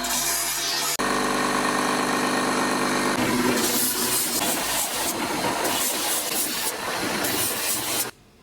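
Electric grinder motor running with metal being ground against it in repeated passes, each pass a harsh high hiss over the steady motor hum. The sound cuts off abruptly near the end.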